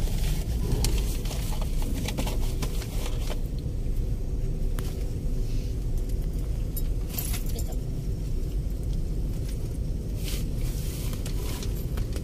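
Steady low engine rumble with scattered light clicks and metallic rattles over it.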